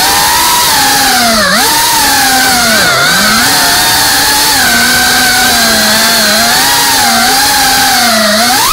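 FPV quadcopter's motors and propellers buzzing loudly. The pitch rises and falls as the throttle changes, and it climbs sharply near the end.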